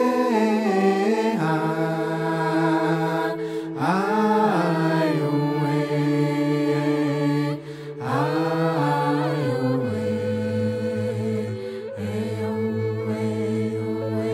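Music: wordless chanted vocal phrases that swoop up and then fall, beginning about every four seconds, over steady held chords. After about ten seconds a low note is held underneath.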